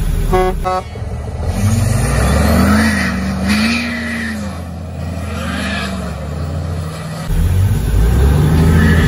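Two short horn toots about half a second in, then the cabover semi's heavy diesel engine revving under load, its pitch rising and falling again and again, before it drops off abruptly near the end and climbs once more.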